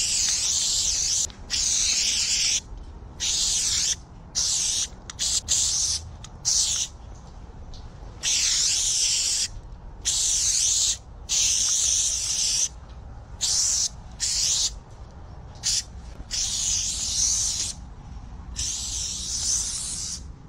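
Arton aerosol spray-paint can hissing in short bursts as letter outlines are sprayed: about fifteen sprays, each from half a second to a second and a half long, with brief pauses between.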